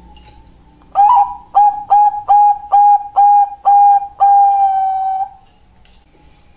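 Zebra dove (perkutut) cooing its song: a run of about seven short, clipped coos, about two a second, starting about a second in and ending in one long drawn-out coo.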